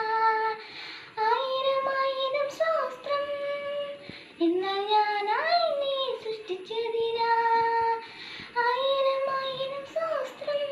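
A young girl singing a devotional song solo, in long held notes with short breaths between phrases and a swoop up and down in pitch about halfway through.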